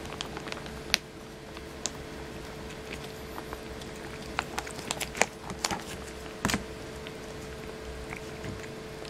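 A cat eating wet food chunks in gravy off a plate: irregular small clicks and wet smacks of chewing and licking, coming thicker about halfway through.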